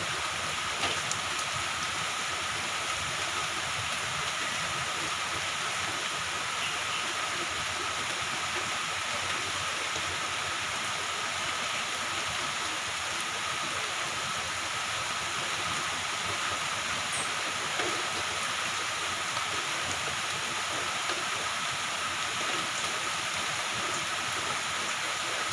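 Moderate to heavy rain falling steadily, an even hiss with no let-up.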